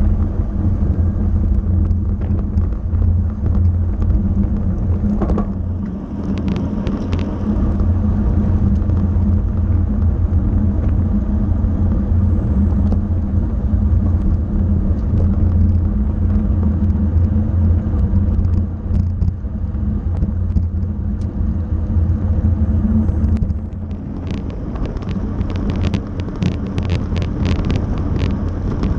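Steady low wind rumble on the microphone of a racing cyclist's onboard camera at race speed. Short runs of light clicking come about six seconds in and again, longer, near the end.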